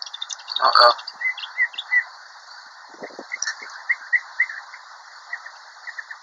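Small birds chirping outdoors, short high chirps repeating about twice a second over a steady background hiss, with a brief louder sound about a second in.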